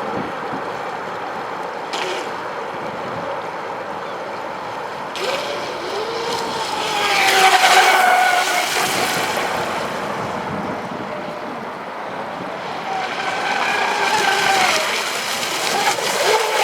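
Electric motor of a Pro Boat Miss Geico radio-controlled racing boat running on the river, its whine gliding up and down in pitch with the throttle over a hiss of water and wind. It is loudest about halfway through and swells again near the end.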